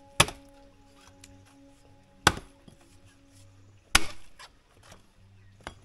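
Firewood being chopped with a short-handled blade: three sharp chops into wood, roughly two seconds apart, then a lighter knock near the end.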